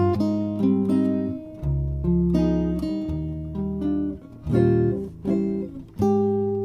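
Background music on acoustic guitar, plucked and strummed chords with a bass line.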